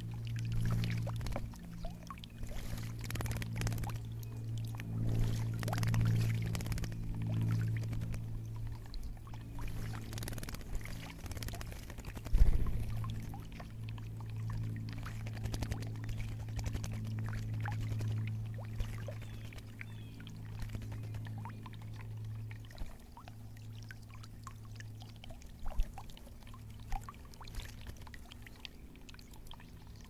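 Water splashing and dribbling as a songbird bathes in a birdbath, with many small splashes and one sharp splash about twelve seconds in. A steady low hum runs underneath and stops a little past the twenty-second mark.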